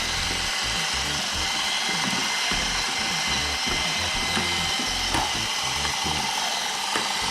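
Small battery-powered motors of Little Live Pets toy turtles whirring steadily, with a few light clicks from their walking mechanism.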